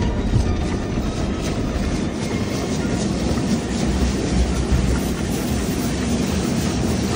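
Automatic tunnel car wash heard from inside the car's cabin: cloth wash curtains, brushes and water spray working over the body and windshield, making a steady heavy rumble with faint repeated slapping.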